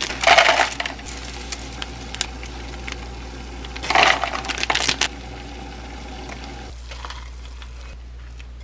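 Seasoning sachets torn and emptied into a paper cup of dry noodles: dry flakes and crunchy nut toppings patter onto the noodles amid packet crinkling, loudest in two bursts, just after the start and about four seconds in. Near the end, water is poured into the cup from a kettle.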